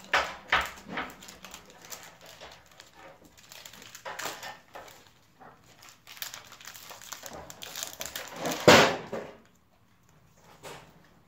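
Foil Pokemon booster pack wrapper crinkling and tearing as it is opened by hand, in several short bursts. The loudest brief sound comes a little under nine seconds in.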